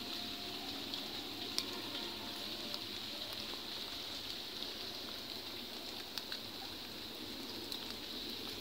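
Steady hiss of water across a rain-flooded field, with a few faint clicks.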